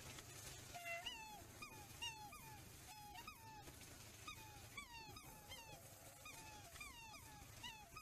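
Black swans calling: a run of short, high calls, each falling in pitch, about two a second and overlapping as if from several birds.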